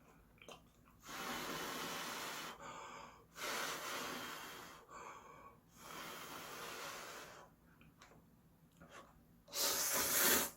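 A person's breathy mouth sounds while eating hot ramen noodles: five long rushes of air at the lips with pauses between, the last one loudest.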